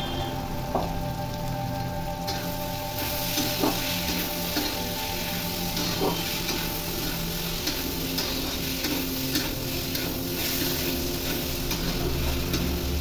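Chickpeas and masala frying in oil in a kadai, sizzling steadily while a spatula stirs them. The spatula scrapes the pan and knocks against it a few times.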